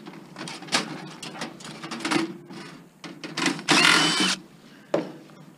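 Clicks, knocks and scraping of computer parts and circuit boards being handled and pulled loose, with a longer scrape of under a second about four seconds in.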